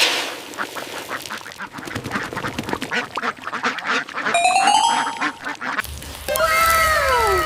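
Cartoon sound effects: rapid duck-like quacking, then a rising whistle about four seconds in, then a string of falling, echoing tones over a low rumble near the end.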